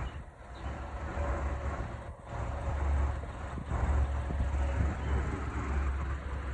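Vehicle engine running with a steady low rumble, with road traffic noise around it.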